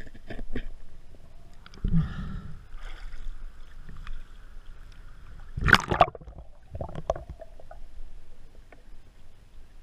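Muffled underwater clicks and knocks from handling and loading a Bluetec Raptor 115 speargun's rubber band and line, with a low dull thud about two seconds in and a loud sharp clack a little before six seconds.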